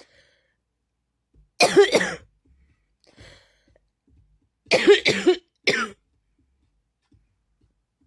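A person coughing in two fits: a quick run of harsh coughs about a second and a half in, then another run of coughs around five seconds, with quiet between.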